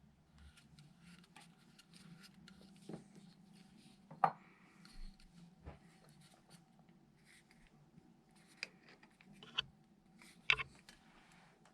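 Irregular small clicks, taps and rubbing of objects being handled, with a few sharper knocks, over a faint steady hum.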